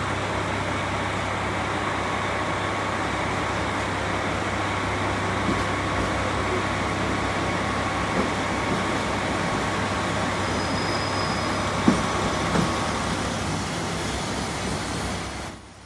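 JR Hokkaido 733-series electric train running slowly in along the platform, a steady rumble and hum with a faint steady tone. There is a single sharp knock about twelve seconds in, and it grows louder near the end as the train draws level.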